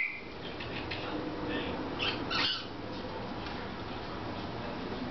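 Pet cockatiel giving two short, rough calls about two seconds in, over faint room noise.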